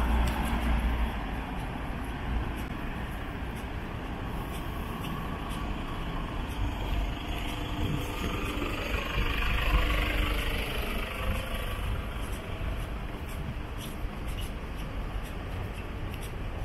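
City street traffic: a steady rumble of cars and trucks going by, with one vehicle passing closest about halfway through.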